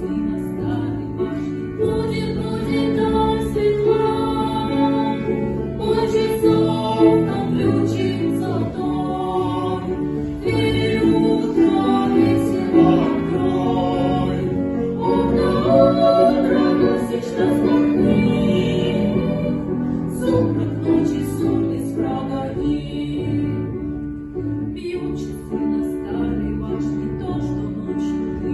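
Music: a small vocal ensemble singing with piano accompaniment.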